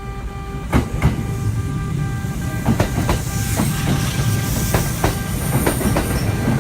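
A Kintetsu electric train rolling slowly through the station, its wheels clacking irregularly over rail joints and points above a steady low rumble, with a faint high wheel squeal in the middle.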